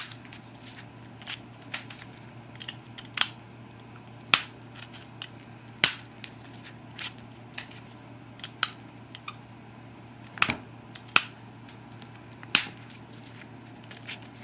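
Obsidian biface being pressure flaked with a metal-tipped pressure flaker: sharp clicks as flakes pop off the edge, about ten loud ones at irregular spacing of one to two seconds with fainter ticks between, over a steady low hum.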